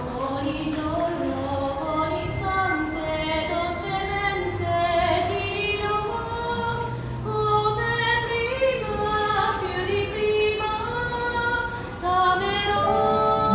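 A gondolier singing solo with long held notes that slide from one to the next. Near the end, background music comes in.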